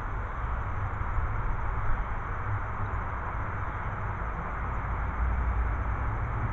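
Steady outdoor background noise: a low rumble with an even hiss over it, such as wind on the microphone or distant traffic.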